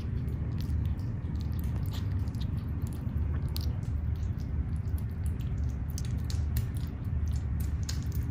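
Kittens eating wet cat food from a plate: many small, sharp chewing clicks over a steady low rumble.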